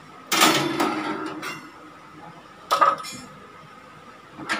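Metal kitchenware clattering as the oven rack and a tool are handled. A loud clatter comes about a third of a second in and rings briefly, a sharp clank follows near the three-second mark, and more clattering starts just before the end.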